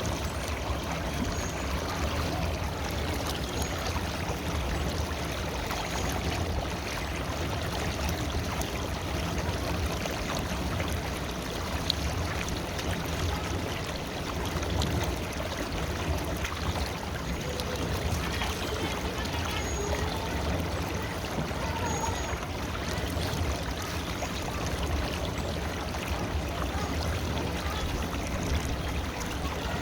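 River water flowing steadily, with a constant rushing and a low rumble.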